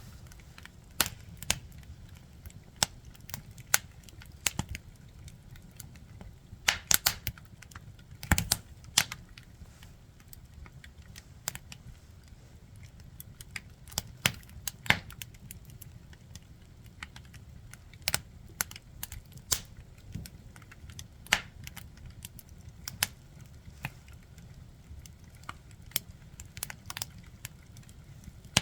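Firewood burning with irregular sharp crackles and pops, now and then several in quick succession, over a low steady rumble of the fire.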